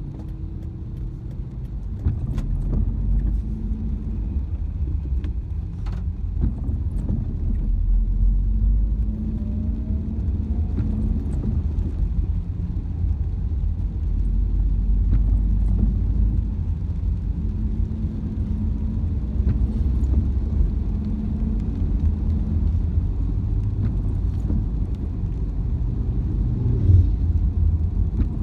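Car driving on a wet road, heard from inside the cabin: a steady low rumble of engine and tyres, with a few faint ticks.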